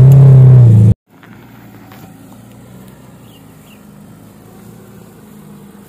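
Loud engine noise of an off-road Suzuki 4x4, heard from inside the cab, cutting off abruptly about a second in. It is followed by a much quieter Suzuki Katana engine running low and steady as the vehicle crawls through mud, with a few faint high chirps.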